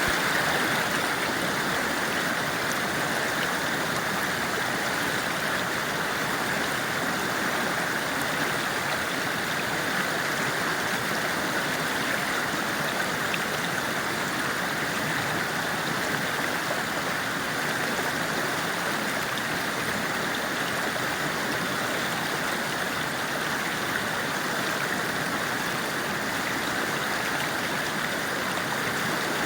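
Forest stream flowing over rocks: a steady, unbroken rushing and babbling of water.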